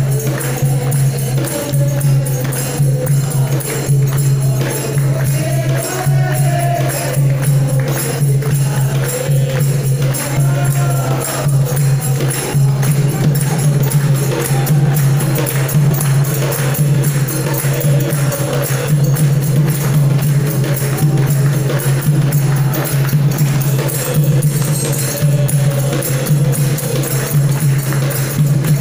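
A Hindu devotional bhajan sung by a group, with wavering sung melody, fast jingling hand percussion and a steady low hum underneath.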